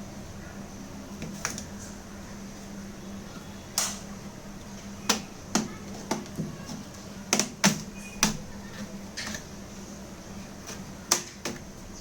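Plastic opener tool prying the bottom cover off a Lenovo IdeaPad 330S laptop: about a dozen sharp, irregular clicks and snaps as the cover's plastic clips pop loose, most of them grouped in the middle.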